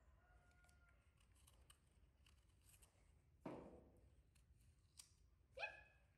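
Near silence, with faint scattered clicks of a small knife paring the skin of a guava. There is a short falling sound about three and a half seconds in and a brief rising squeak near the end.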